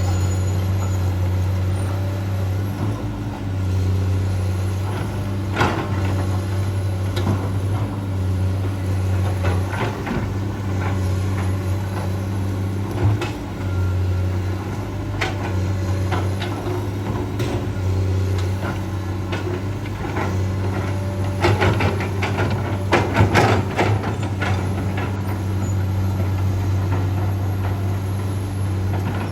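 Komatsu PC200-8 hydraulic excavator's diesel engine running steadily under work, its low hum dipping and swelling several times. Scattered knocks and clatter from the working machine, with a thicker burst of them about three-quarters of the way through.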